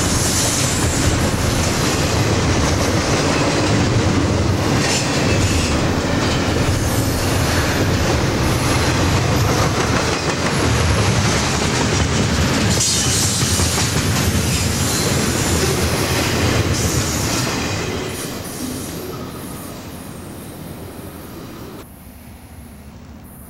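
Double-stack container freight train rolling past: steady clatter of wheels on the rails with some high wheel squeal. The sound fades over the last few seconds as the end of the train goes into the tunnel.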